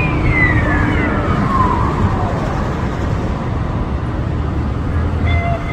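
Steady city street traffic noise, with a siren-like tone falling in pitch over the first two seconds, like an emergency vehicle's siren winding down.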